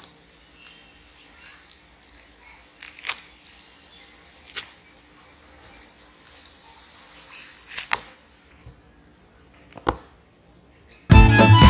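Banana skin being peeled and pulled apart close to a clip-on microphone: sparse sharp snaps and tearing rustles, with a longer stretch of tearing just before the last snaps. Music with violin starts loudly near the end.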